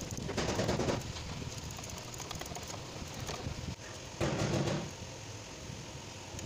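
Socket ratchet clicking in quick runs as thermostat-housing bolts are loosened, with two short scuffing bursts of handling noise, about half a second in and about four seconds in.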